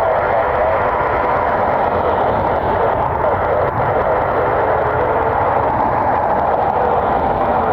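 Embraer ERJ 145 regional jet's turbofan engines running with a steady, even jet noise that neither rises nor falls.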